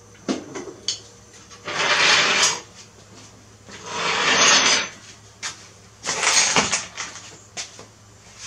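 A jack being lowered and pulled out from under the front of a riding mower: a few sharp metal clanks and three scraping slides, each about a second long.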